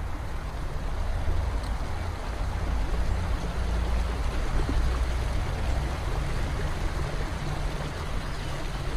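Small mountain-stream waterfall pouring steadily into a rock pool, a constant rushing of water with a deep rumble underneath.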